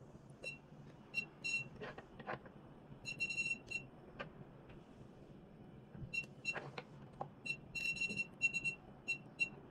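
Short electronic beeps from a cavitation slimming machine's touchscreen as its buttons are pressed, some single and some in quick runs of several. Between them come a few light knocks and clicks as the handpieces are lifted and handled.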